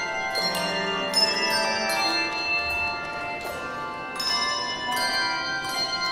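Handbell choir ringing a hymn tune: chords of bells struck about once a second, each note ringing on and overlapping the next.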